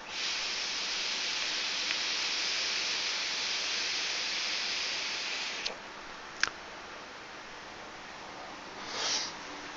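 Long, steady hiss of air drawn through the wide-open airflow holes of an Enigma e-cigarette atomizer over a firing 0.5-ohm coil, cutting off after about five and a half seconds. A single click follows, then a short breathy puff near the end.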